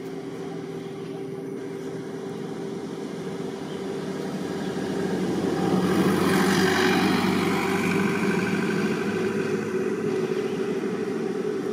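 A motor vehicle passing on a road, its engine sound swelling to its loudest about six or seven seconds in and then easing off.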